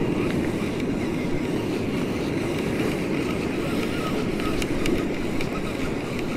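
Steady rushing of wind and sea water around a fishing kayak on the open ocean, with a few faint ticks near the end.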